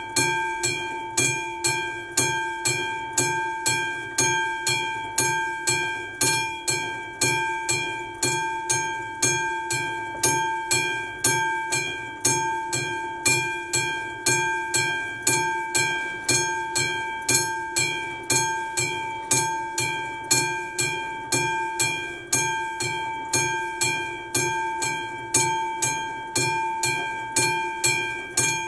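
Classic railway level-crossing bell made by AŽD Praha, struck steadily at about two strokes a second, each stroke ringing on: the crossing's warning for an approaching train.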